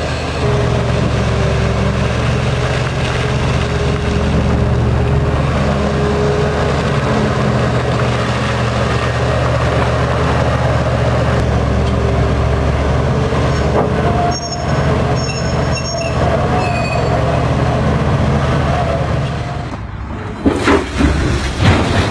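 Heavy diesel machinery running with a steady low drone. A few short high-pitched squeals come about two-thirds of the way through, and the sound changes abruptly near the end.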